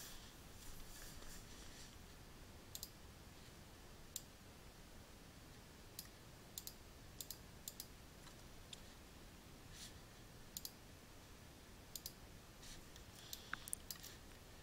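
Faint, scattered clicks of a computer mouse, single and in small quick clusters, about a dozen over the stretch, over a low steady hiss.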